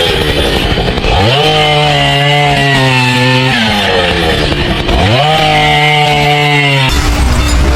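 A small engine is revved up twice. Each time the pitch climbs, holds steady for about two seconds, then drops back.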